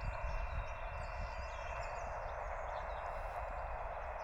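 Steady hiss of band noise from the LAB599 TX-500 transceiver's speaker on single-sideband, the receiver listening after a CQ call with no station answering.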